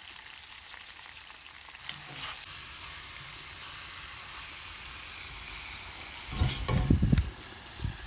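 Chunks of meat sizzling steadily as they fry in oil in a cast-iron kazan over a wood fire. About six seconds in, a louder stretch of low rumbling and knocks lasts about a second.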